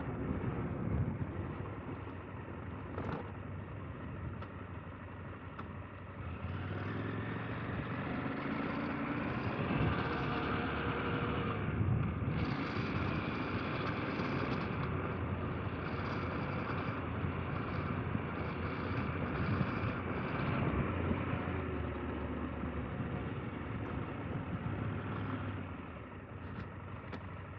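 KTM 890 Adventure R's parallel-twin engine running as the motorcycle rides along a dirt road. It picks up about six seconds in and then holds fairly steady.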